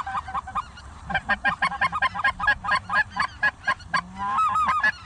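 Goose calling: a fast, even string of short honks, about four a second, with a few higher rising-and-falling calls near the end.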